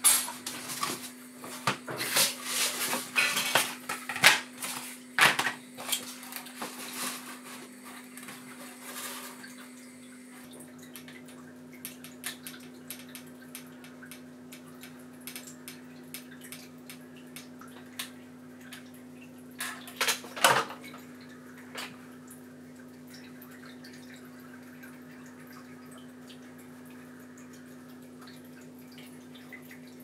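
Stiff black panels handled and fitted together on a table, making clicks, taps and knocks that are busiest in the first ten seconds, with a couple of sharp knocks about twenty seconds in. A steady low hum runs underneath.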